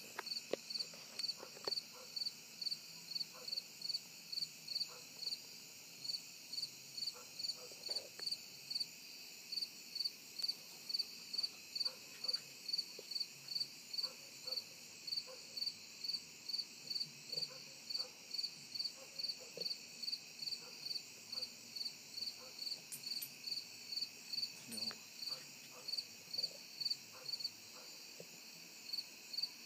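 A cricket chirping steadily, about two short high chirps a second, over a steady high hiss of other night insects.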